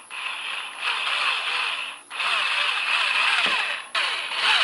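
Electric drill driving a 2.5-inch screw through a rubber paddle clip into a plastic kayak hull. The drill runs in three bursts with brief stops, the last one short.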